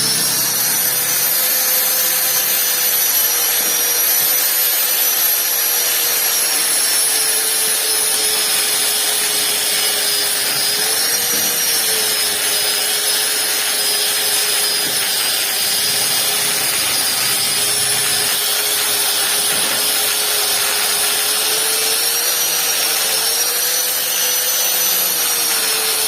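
High-speed rotary power tool with a steel bit carving wood: a steady motor whine over a grinding, rasping noise, the pitch sagging briefly a couple of times as the bit bites into the wood.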